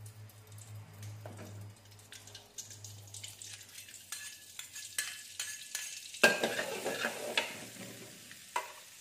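Margarine melting and sizzling in hot oil in a steel wok, with a metal spatula and spoon scraping and tapping the pan. The sizzle starts suddenly, loudly, about six seconds in and fades over the next two seconds.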